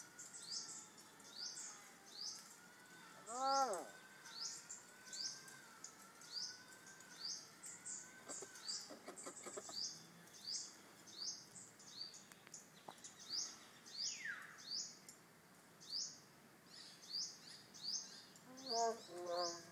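Birds calling: a short high chirp repeats steadily, with an arching call a few seconds in, a falling whistle about two-thirds of the way through, and a quick run of short pitched calls near the end.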